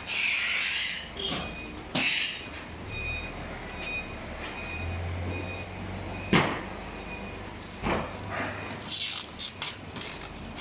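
Handling noises from parts of an aluminium rack being assembled: rustling bursts, scattered clicks and one sharp knock about six seconds in, over a low steady hum.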